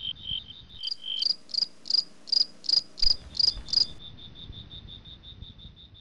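Crickets chirping: a steady, fast pulsing chirp throughout. A second, louder and higher chirping repeats about three times a second from about one second in to about four seconds in.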